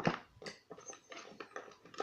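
Irregular light clicks and taps of small lock parts being handled as a picked pin-tumbler challenge lock is taken apart, about half a dozen in two seconds.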